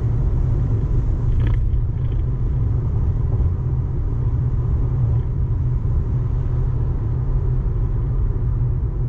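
Road and wind noise inside the cabin of a Tesla Model Y Long Range AWD slowing at motorway speed, from about 170 to 120 km/h: a steady, deep rumble of tyres and wind, with no engine sound.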